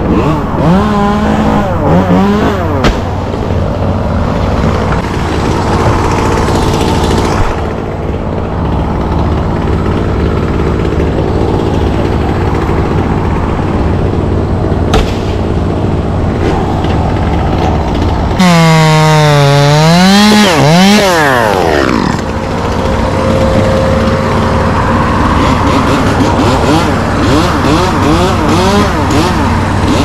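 Chainsaw running and revving up and down several times, its pitch sagging under load for a few seconds about two-thirds of the way through before it climbs again, over a steady low engine drone.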